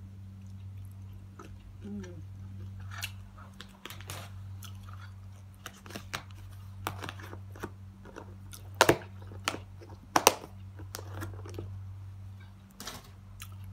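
A person chewing and eating, with scattered clicks and light clatter of dishes being handled, and two sharp knocks about nine and ten seconds in. A steady low hum runs underneath.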